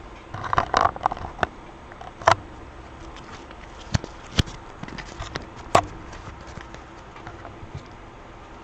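Baseball cards being flipped and shuffled in the hand. The card stock gives a cluster of clicks and snaps in the first second or so, then single sharp clicks every second or two.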